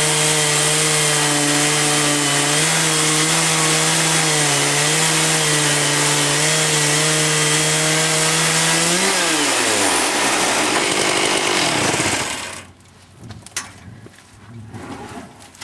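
Portable sawmill's saw running steadily at full speed through a cut in black walnut, then about nine seconds in its speed falls away and it winds down to a stop, leaving small handling noises.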